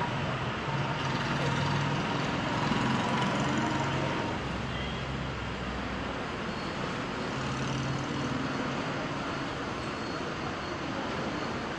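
Road traffic noise with a motor vehicle engine running, a little louder in the first four seconds and then easing off.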